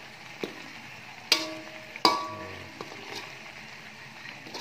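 Spice paste sizzling as it is stir-fried in a wok, the spatula scraping through it, with two sharp knocks of the spatula on the pan about a second and two seconds in, each leaving the wok ringing briefly.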